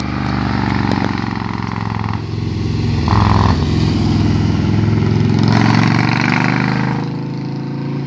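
A group of Harley-Davidson touring motorcycles riding past one after another, their V-twin engines running, the sound swelling and fading as each bike goes by.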